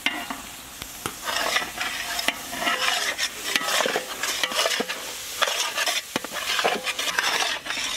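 Sliced onions, dried coconut and cashews sizzling in hot oil in a large metal pot. A metal ladle stirs through them, scraping against the pot in quick, irregular strokes.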